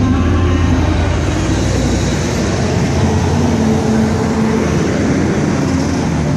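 Street traffic: a steady, loud rumble of a vehicle engine running close by, its hum shifting in pitch about two seconds in, over the hiss of traffic.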